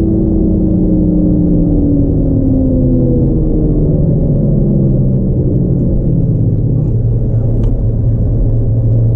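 Renault Mégane RS Trophy's turbocharged four-cylinder engine under way on track, heard from inside the cabin. Its revs fall steadily over the first few seconds as the car slows, then hold a lower, steady note over a heavy road and tyre rumble.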